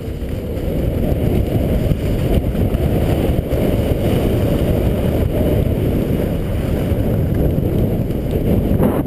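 Wind rushing over the microphone of a skier's camera while skiing downhill, growing louder over the first second or so as speed builds, then steady.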